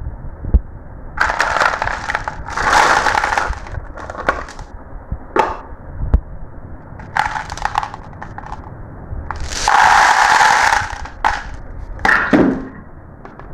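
Marbles rolling and clattering along a marble run, in several bursts of rattling about a second long with sharp clicks between them.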